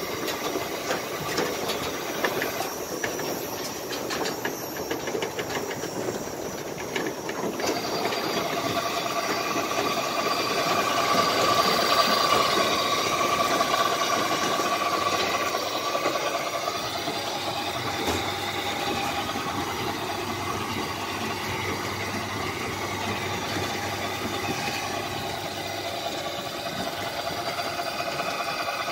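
Belt-driven piston air compressor with a 500-litre tank running with a rapid, even knocking. About seven seconds in it gives way to the steady running of a silage baling machine and its conveyor, with a whine that swells and then eases.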